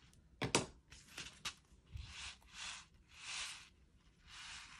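Craft materials being handled on a desk: a few light clicks and taps, then four short rustling swishes like paper or plastic sheet being moved.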